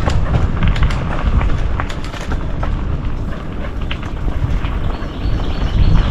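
Mountain bike riding down a dirt trail: tyre rumble and wind buffeting on the microphone, with frequent rattles and clicks from the bike over the bumps.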